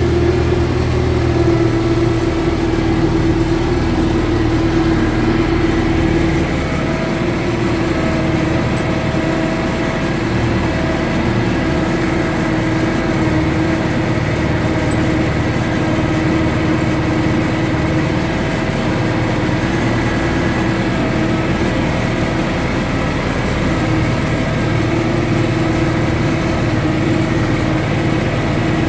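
UTB U650 tractor's four-cylinder diesel engine running loud and steady under load, pulling a plough through the field in second gear.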